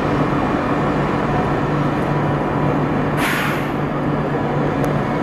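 Electric passenger train approaching a station platform: a steady rumble and low hum, with a short hiss of air about three seconds in.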